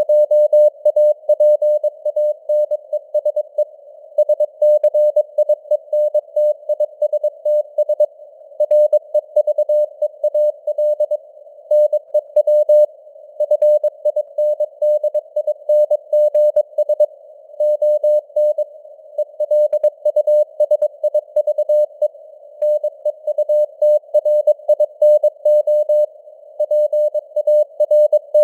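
Morse code (CW) sent at 22 words per minute as a keyed tone of about 600 Hz, in rapid dots and dashes with short gaps between words. It sits over a low hiss of simulated radio noise, and the signal strength rises and falls slightly (QSB).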